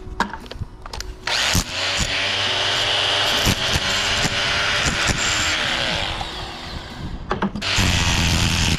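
Rotary hammer with a chisel bit chipping stucco off a pillar top. It starts about a second in after a few sharp knocks, eases off for a moment past the middle, and bites in hard again near the end.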